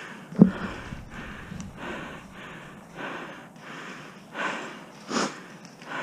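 Player breathing hard close to a head-mounted camera microphone while moving, in a run of noisy swells, with one sharp knock about half a second in.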